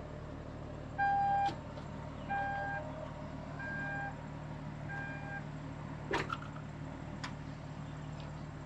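Power tailgate of a BMW X3 closing: four warning beeps a little over a second apart, the first the loudest, then a thud as the tailgate latches shut and a lighter click about a second later.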